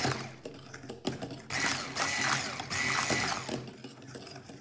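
Electric hand mixer running, its beaters whisking cake batter in an enamel bowl; the motor's whine comes and goes in level as the beaters work through the batter.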